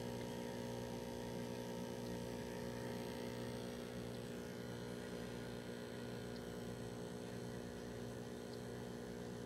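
Aquarium air pump humming steadily, a low electric buzz with many overtones.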